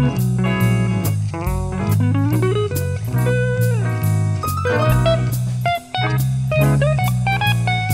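Background music: a blues-style guitar playing sliding, bending notes over bass and a steady drum beat.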